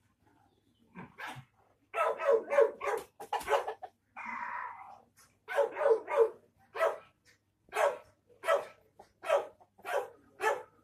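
A dog barking repeatedly. A quick run of short barks starts about two seconds in, and more spaced barks follow through the rest.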